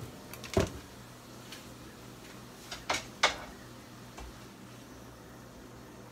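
Knocks of kitchen items being handled on a counter: one dull thump about half a second in, then two sharp clacks close together about three seconds in, over a faint steady hum.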